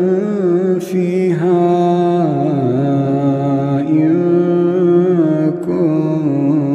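A male Quran reciter chanting in slow, melodic tajweed style, stretching one word into long, wavering notes that glide up and down.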